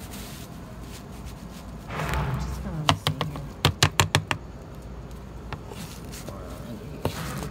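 A swell of rustling noise about two seconds in, then a quick run of about six sharp taps or clicks.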